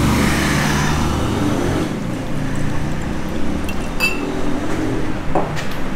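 Rum being poured from a bottle into a glass, the liquid running for about two seconds. About four seconds in comes a sharp glass clink that rings briefly, with a couple of lighter knocks near the end.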